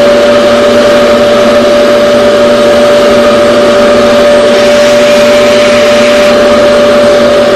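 Revair reverse-air hair dryer's vacuum motor running steadily, a loud rush of air with one strong, unchanging pitched tone.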